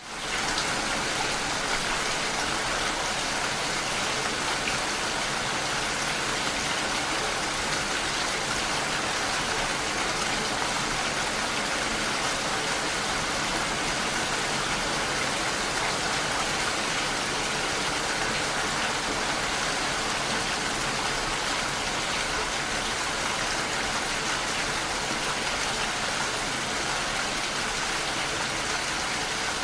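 Steady, dense rainfall hiss with no distinct drops standing out. It fades in quickly at the start, then holds even throughout.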